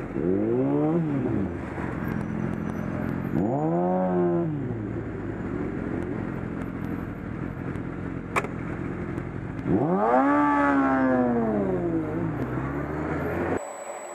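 Sport motorcycle engine revving up and back down three times over steady wind and traffic noise, with a single sharp click about eight seconds in.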